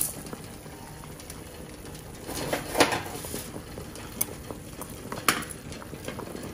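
Water boiling in a stainless steel saucepan with a steady bubbling hiss, while metal locket necklaces are moved about in it, chains and cases clinking against the pan a few times, the loudest knock about three seconds in.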